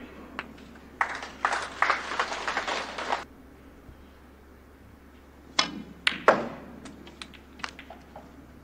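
Snooker balls clicking: a sharp crack of the cue tip on the cue ball and the cue ball hitting the pack of reds, then several lighter ball-on-ball clicks as the reds spread. Before the shot there is a burst of crackling noise lasting about two seconds.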